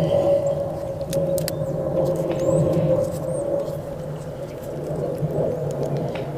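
A steady hum with a held tone that sags slightly in pitch, under scattered light clicks and taps.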